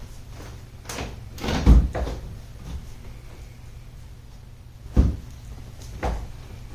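Loose interior trim piece of a Porsche 944 being handled and pulled free, giving a few knocks and clunks: a cluster about two seconds in is the loudest, with another sharp knock near five seconds and a lighter one after it. The piece is not fastened in.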